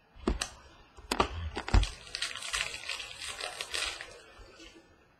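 Trading cards being handled by hand: a few sharp taps and clicks in the first two seconds, then about two and a half seconds of crinkly, papery rustling.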